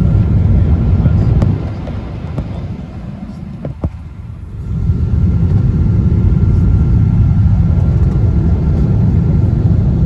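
Cabin noise inside a Boeing 777-200 airliner on final approach: a steady low rumble of engines and airflow over the wing. About a second and a half in the rumble drops away for about three seconds, with a couple of faint clicks, then comes back at full level.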